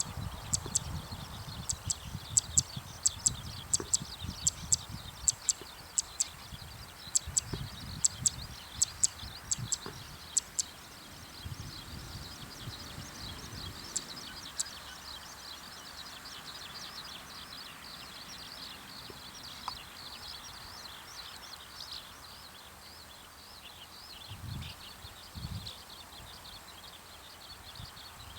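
Zitting cisticola giving its call notes: sharp, short, high 'chip' notes repeated irregularly, one or two a second, for about the first ten seconds, with two more a few seconds later. A dense, steady high chatter runs underneath throughout.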